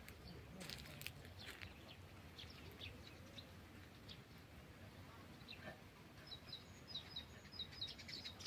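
Faint outdoor ambience with small birds chirping here and there; near the end a bird gives a quick run of about six short, high notes.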